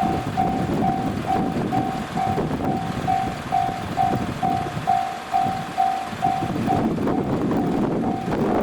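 Japanese level-crossing warning bell ringing in a steady ding-ding rhythm, about three strikes a second; about seven seconds in the rhythm breaks briefly and carries on fainter. A low rumbling noise runs underneath.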